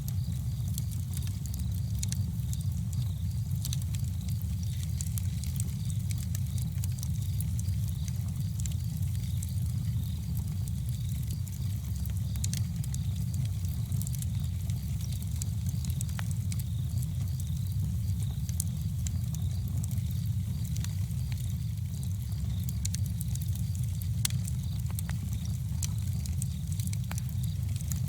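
Campfire burning: frequent small crackles and pops from the burning wood over a steady low rumble.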